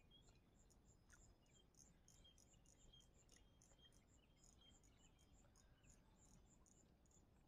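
Near silence with faint, regular high-pitched insect chirping, about four chirps a second, typical of crickets in grass.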